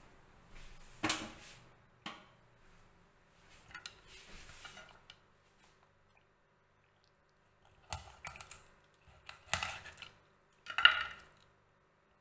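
Scattered taps and knocks on a wooden cutting board as a raw quail is handled. A few sharp knocks come about a second in, then a softer rustling stretch. After a quiet gap there is a cluster of knocks over the last four seconds, the loudest near the end.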